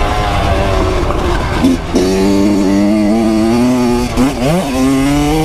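Kawasaki KX100 two-stroke single-cylinder dirt bike engine running under way on a gravel trail, heard close up from the bike. The engine pitch drops about two seconds in, and near the end the revs dip briefly and then climb again.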